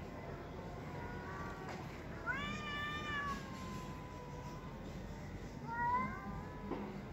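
Cats yowling at each other in a hostile standoff before a fight: long, drawn-out wavering yowls. The loudest starts about two seconds in, rises, then holds and slowly sinks for about two seconds, and another comes near six seconds.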